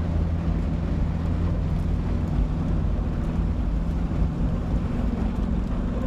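A vehicle engine running steadily, with a low hum under an even rushing noise.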